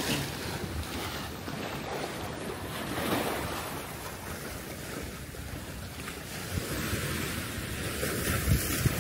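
Small sea waves washing and splashing against a concrete seawall, with wind rumbling on the microphone and a few low wind thumps near the end.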